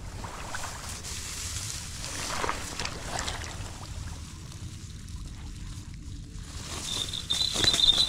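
Rice stalks rustling and shallow paddy water sloshing and trickling as someone wades and reaches into the mud, over a steady low rumble. About seven seconds in, louder handling noise and a high, steady ringing tone start.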